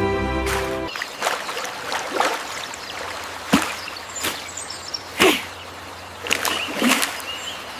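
Background music that cuts off about a second in, followed by outdoor ambience with several short, sharp clicks or chirps and faint high bird chirps.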